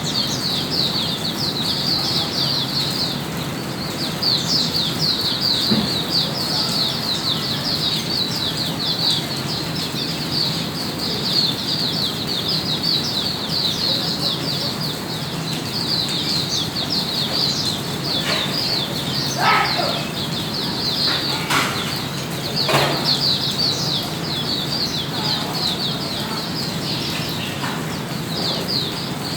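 White-eye (mata puteh) singing a long, unbroken run of rapid, high twittering notes: the continuous 'long gun' style of song. A few short sharp sounds break in during the second half.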